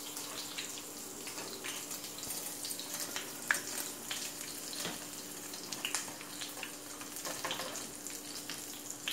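Hot oil sizzling steadily as french fries deep-fry in a pot, with a few light clicks of a utensil against the pot as fries are lifted out. A faint steady hum runs underneath.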